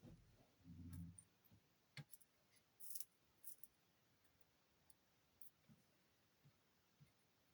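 Near silence with a few faint scattered clicks and taps, and a brief low hum about a second in.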